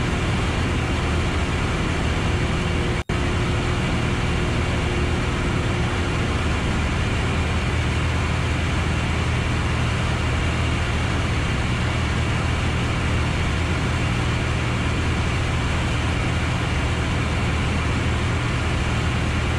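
Steady drone of a Piper Arrow's single piston engine and propeller in cruise, heard inside the cockpit. The sound cuts out for an instant about three seconds in.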